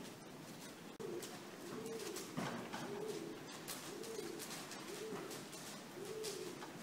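A pigeon cooing repeatedly, a rising-then-falling coo about once a second, with faint scattered ticks in the background.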